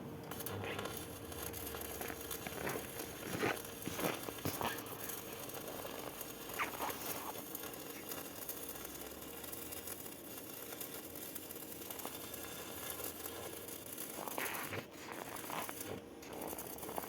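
Electric arc welding on a KamAZ truck frame: the arc crackling and sputtering steadily, with occasional sharper pops.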